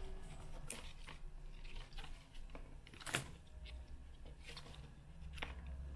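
Knife cutting satin pothos stems into node cuttings against a cutting mat: a few soft clicks and snaps, the loudest about three seconds in, over a faint low hum.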